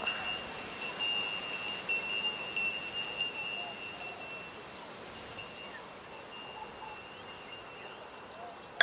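A high, clear chime tone rings on steadily with a higher overtone, breaks off about five seconds in, then resumes, over a faint background hiss.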